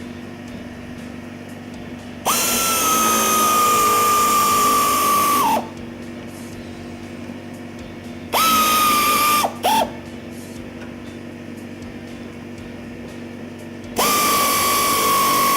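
3/8-inch pneumatic air ratchet running in three bursts of a few seconds each, a steady high whine that sags a little in pitch as it runs down nuts on the bolts that draw a backing block down onto a poly bracket; a short blip follows the second burst. A steady low hum sounds between the bursts.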